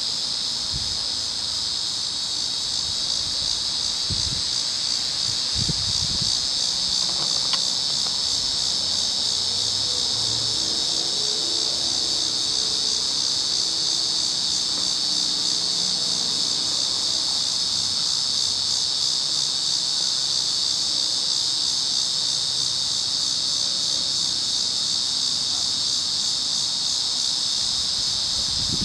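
Steady, high-pitched chorus of insects chirping without a break.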